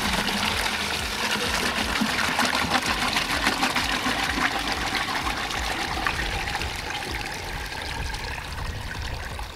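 Water pouring steadily from a plastic container into a plastic bucket that already holds water, easing off slightly near the end.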